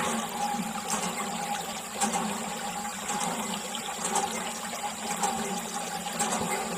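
A thin jet of water spraying onto a toy tractor and splashing into a shallow puddle, with a steady hum underneath.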